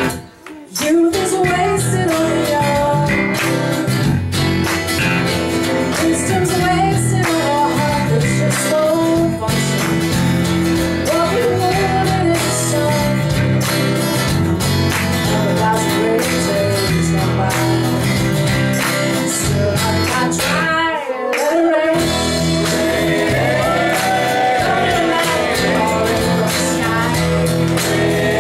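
A live soul band plays: a woman sings lead over acoustic guitars and an electric bass guitar. The music dips just after the start and breaks off briefly about three-quarters of the way through before picking up again.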